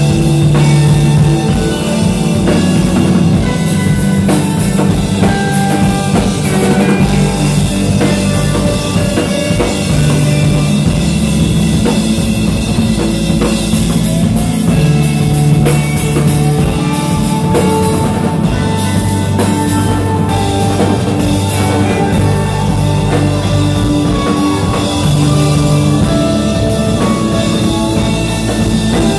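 Live rock band playing, with a drum kit and electric guitar over sustained low notes.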